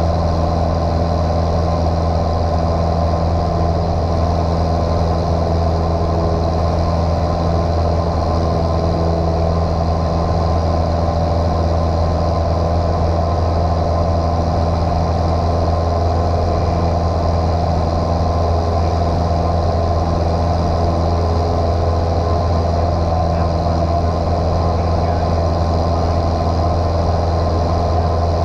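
Single-engine piston airplane engine and propeller droning at constant power, a deep, unchanging hum heard inside the cockpit.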